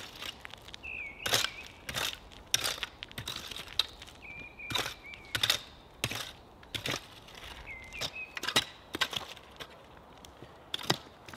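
Long-handled digging tool striking and scraping into loose soil and gravel, an irregular series of short chopping strokes about one or two a second.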